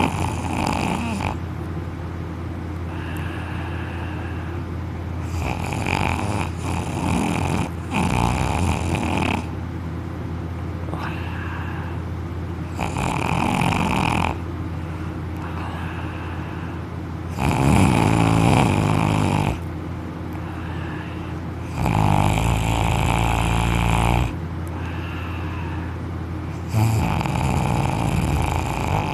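A young man snoring loudly in deep sleep, lying on his back with his mouth open. Each snore is a rasping, buzzing breath from the vibrating soft palate and uvula, coming roughly every four to five seconds over a steady low hum.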